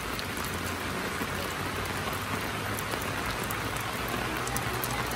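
Heavy rain falling steadily, an even hiss with scattered ticks of individual drops.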